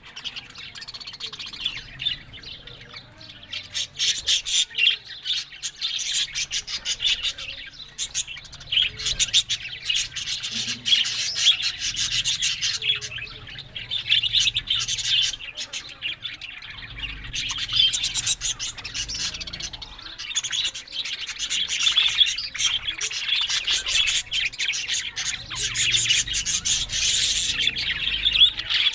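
Budgerigars chattering and warbling continuously, a dense stream of rapid chirps and clicks, rising in loudness a few seconds in.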